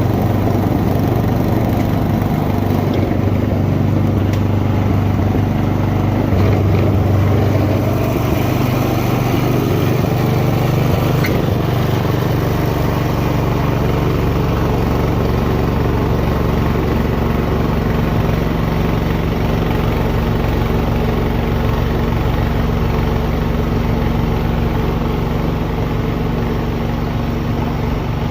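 Thirty-year-old Ariens two-stage snowblower running steadily while clearing crusty, settled snow. Its engine note shifts a little about twelve seconds in.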